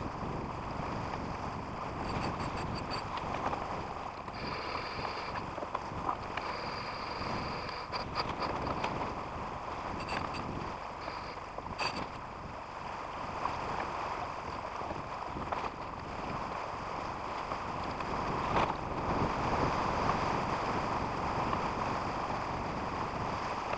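Steady wash of water along a sailing yacht's hull and wind on the microphone as the boat sails along, with a few faint brief clicks and thin high whines.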